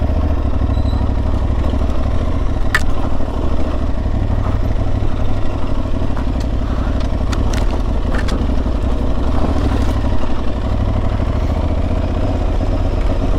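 Aprilia Tuareg 660's parallel-twin engine running steadily as the motorcycle rides slowly along a dirt trail, with a few scattered sharp clicks.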